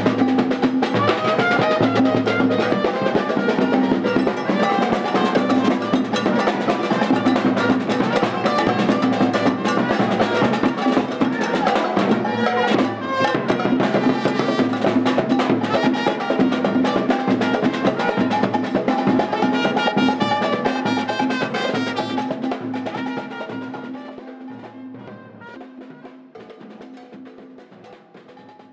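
Street band playing: a trumpet over a group of drums keeping a steady rhythm. The music fades out over the last six seconds or so.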